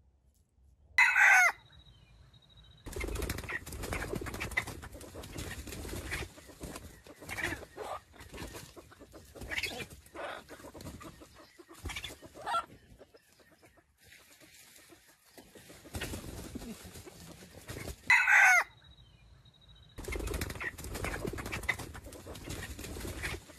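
Red junglefowl roosters: a short, loud crow about a second in and another at about 18 seconds, with clucking and scuffling in the leaf litter between them.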